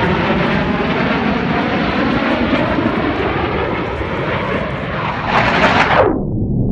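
Aircraft engine noise from an airplane flying past. About five seconds in it swells and falls sharply in pitch as it passes, then the higher sound cuts off abruptly, leaving a muffled low rumble.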